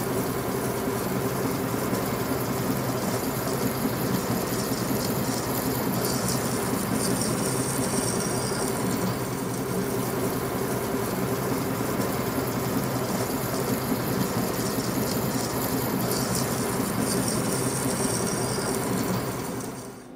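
Small metal lathe running steadily while a twist drill in the tailstock bores into a spinning steel workpiece, with the motor and drive humming in a few steady low tones. A higher hiss from the cut comes and goes, strongest twice in the middle stretch.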